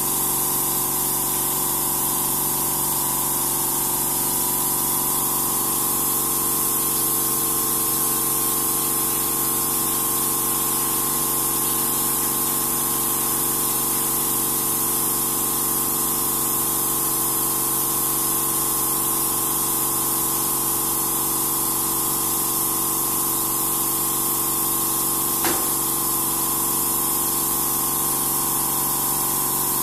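TESTEX TU380 salt spray tester running: a steady hiss of spray with a constant machine hum under it. A brief click sounds near the end.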